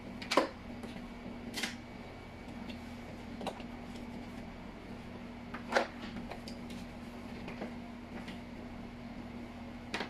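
Plastic parts of a Black+Decker wet and dry vacuum being handled: a few sharp knocks and clicks, the loudest about half a second in and just before six seconds, over a steady low hum.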